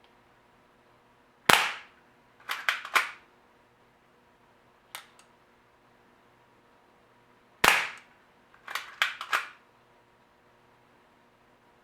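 Barra 1911 spring-powered BB air pistol firing two shots about six seconds apart, each a sharp crack followed about a second later by a quick cluster of three or four lighter clicks.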